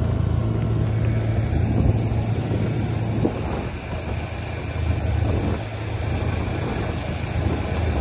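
Steady low drone of the engine of a machine towing a sled across snow, mixed with the rough noise of the ride, easing a little about halfway through before picking up again.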